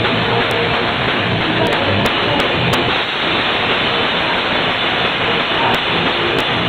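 Live rock band playing loudly: drum kit with cymbals and electric guitars, a dense continuous wall of sound.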